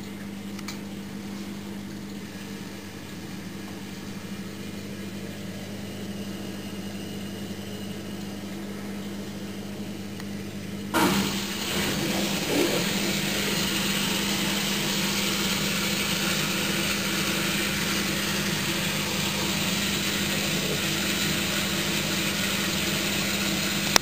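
Candy GO4 1274 LH washing machine draining, its drain pump humming steadily. About eleven seconds in there is a clunk, and a louder, even rushing noise starts abruptly and runs on over the hum.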